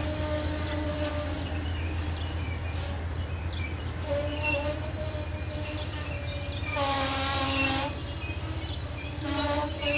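Amtrak passenger coaches rolling past close by: a steady low rumble of wheels on rail, with squealing tones coming and going above it and a louder burst of tones about seven seconds in.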